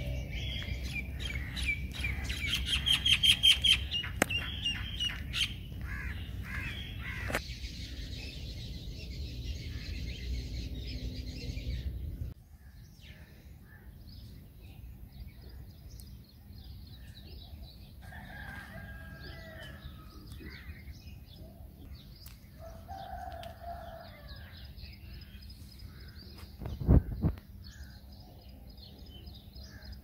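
Small birds chirping and singing, with a fast run of repeated notes a few seconds in over a low rumble. The sound drops off abruptly near the middle, leaving scattered faint chirps, and a brief loud thump comes near the end.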